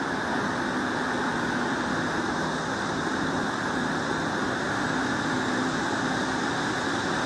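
A heavy machine's engine running steadily: an even drone with a faint low hum, with no changes in speed.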